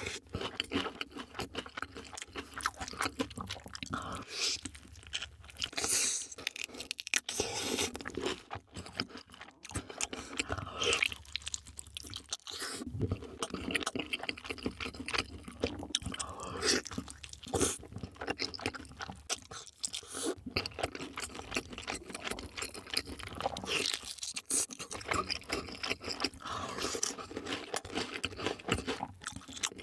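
Crunching and chewing of sauce-glazed fried chicken: irregular crisp crackles from the coating as it is bitten and chewed, with wet, sticky mouth sounds between them.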